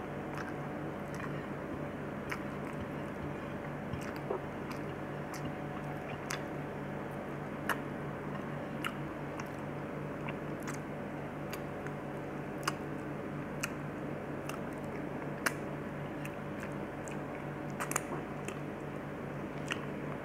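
Close-miked chewing and mouth sounds of a person eating rice with macaroni and lentils by hand, with sharp little clicks and smacks scattered every second or two over a steady low hum.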